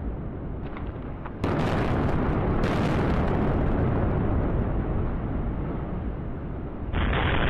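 Low, continuous rumble of explosive demolition as concrete cooling towers collapse, abruptly getting louder and fuller about a second and a half in and again near the end.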